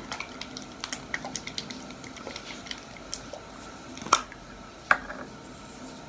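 Light clicking and handling of a plastic pump bottle of keratin hair serum, then two sharp clicks about four and five seconds in as the pump is pressed twice into the hand.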